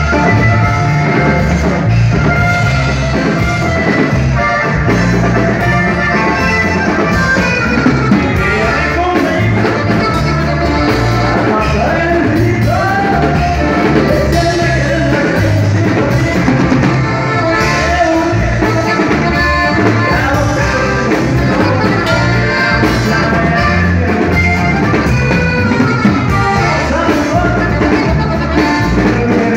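Norteño band playing live and loud, close up: accordion lead over electric bass and drums.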